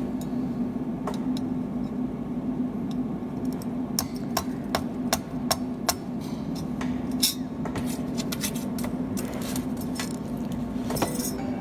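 Cold welding machine doing touch (contact) welding: a run of sharp, irregularly spaced snapping clicks as the welding pulses fire, over a steady machine hum. The clicks come thickest in the middle and again near the end.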